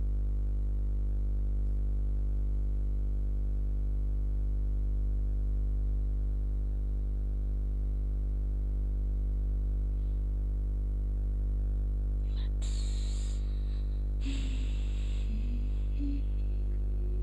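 Steady low electrical hum with a stack of overtones, the mains hum picked up by the screen recording's microphone line. About three-quarters of the way through come two short hissy sounds, and near the end a faint wavering tone.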